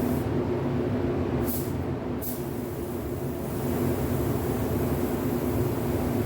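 Steady machine drone with a low hum, and two short high hisses about a second and a half and two seconds in.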